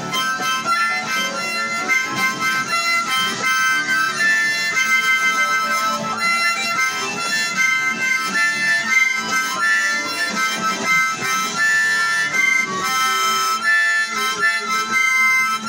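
Harmonica played into a handheld vocal microphone: an instrumental solo of many quick, changing notes without a break.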